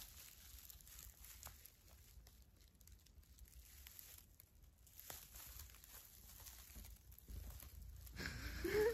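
Faint rustling and crinkling of dry hay close to the microphone, with small scattered ticks.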